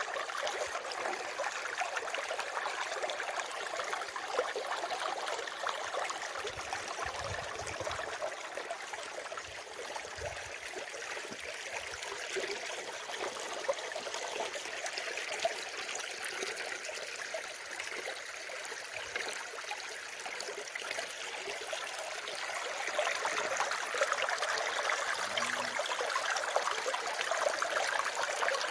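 Water flowing steadily, a continuous rushing trickle that grows a little louder in the last few seconds.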